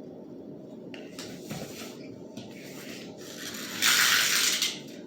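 Toy cars being played with: a low, steady rolling rumble with a few light clicks. About four seconds in there is a loud, brief rushing hiss that lasts just under a second.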